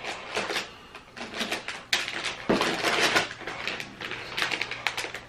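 Plastic candy bag crinkling as it is pulled from a box and handled, a rapid run of crackles, with a knock about two and a half seconds in.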